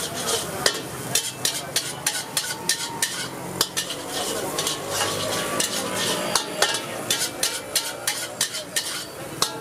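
Metal spatula scraping and clanking against a steel wok, several irregular strikes a second, as vegetable fried rice is stirred and tossed. The rice sizzles underneath.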